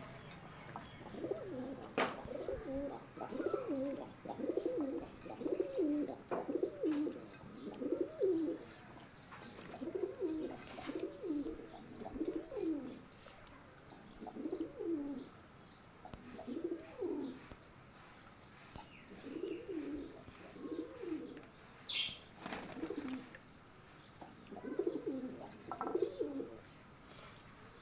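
Pigeons cooing: low calls repeated in short phrases, one after another with brief pauses. Faint high chirps run behind them.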